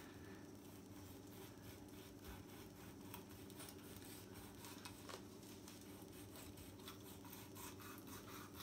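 Faint scraping and rubbing of a kitchen knife cutting into a whole sea bream on a plastic cutting board, many small scratchy strokes, over a low steady room hum.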